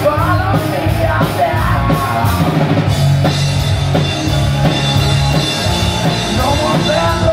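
Live rock band playing loud electric guitar, bass guitar and drum kit, with a male lead vocal singing in the first couple of seconds and again near the end and a more instrumental stretch between.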